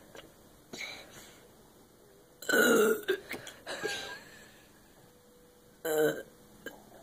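A child lets out a loud burp about two and a half seconds in, brought up by gulping a can of carbonated lemon-lime soda, with a few smaller throat sounds around it.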